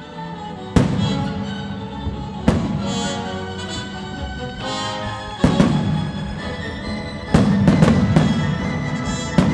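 An orchestra with strings plays while firework shells burst over it: four loud bangs spaced a couple of seconds apart, and near the end a rapid cluster of sharp cracks. The bangs are the loudest sounds.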